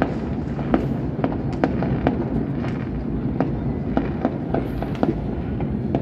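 Many fireworks and firecrackers going off non-stop across a city: a continuous low rumble of booms with sharp cracks and pops at irregular intervals, about two or three a second.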